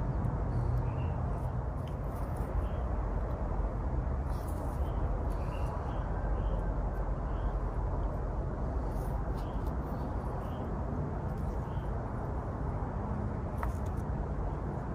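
Steady low background rumble, with a few faint light clicks and rustles as fingers bend the wired branches and leaves of a Chinese pistache bonsai. Faint short high chirps recur now and then.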